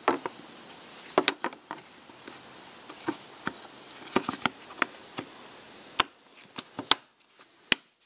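Black plastic side cover of a Porsche 991 Turbo being handled and fitted into its opening: scattered light clicks and knocks of plastic against the car's body and edges. A faint steady high whine in the background stops about seven seconds in.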